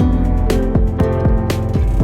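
Background music: plucked guitar over a steady beat of about two strikes a second.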